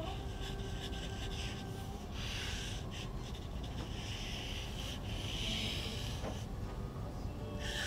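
Pen drawing on paper: several scratchy strokes, each lasting about a second, with short pauses between them, over a steady low background hum.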